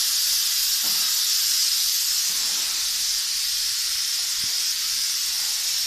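Steady high-pitched hiss, with no other clear sound standing out.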